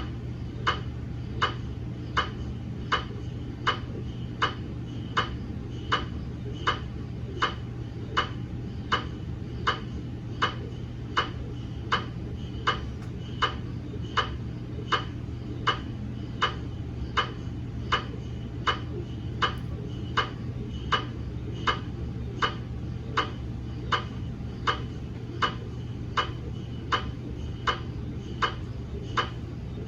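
GE MRI scanner clicking in a slow, even rhythm, about three sharp clicks every two seconds, over a steady low hum: a scan sequence running during the daily QA procedure.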